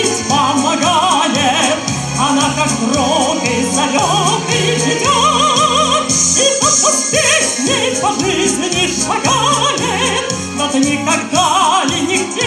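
Mezzo-soprano singing into a microphone with wide vibrato over instrumental accompaniment.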